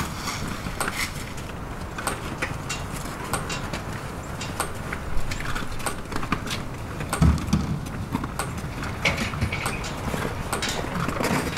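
Irregular crunching steps on snow and frozen ground over a steady low rumble, with a heavier thump about seven seconds in.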